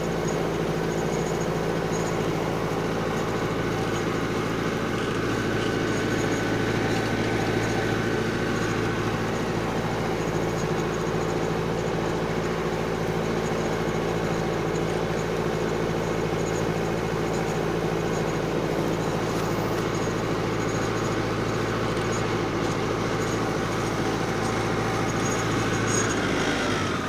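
Massey Ferguson 575 tractor's four-cylinder diesel engine running steadily under load, pulling a plough.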